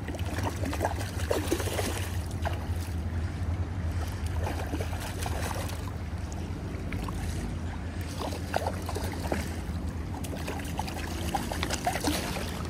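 River current lapping and trickling around the camera at the water's surface, over a steady low rumble. Near the end a hooked trout thrashes at the surface with a few splashes.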